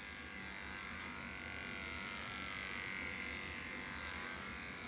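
Corded electric dog-grooming clipper with an adjustable blade set to 6, running steadily as it cuts through the dog's curly coat from the neck down.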